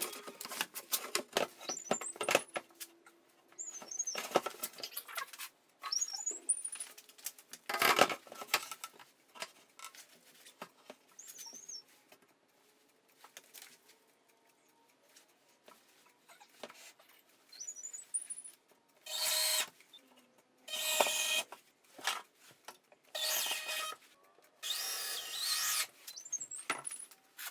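Tool work on a wooden desk: scattered knocks and clicks, then about four short runs of a power tool, each about a second long, in the later part.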